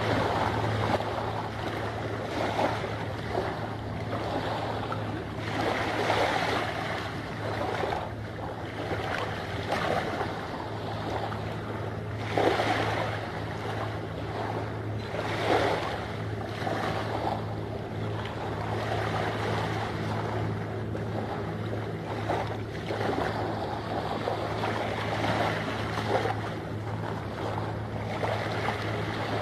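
Harbour water lapping and washing at the shore in irregular surges, with wind on the microphone, over a steady low hum.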